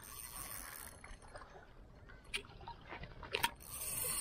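Sea water lapping and washing against shoreline rocks, with a few sharp clicks in the second half.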